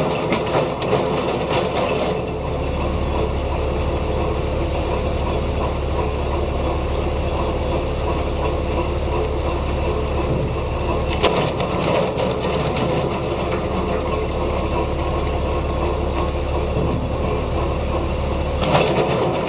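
Tractor-driven twin-shaft wood chipper running steadily on the tractor engine. There are three spells of crackling: near the start, about halfway, and near the end, as branches are fed in and chipped.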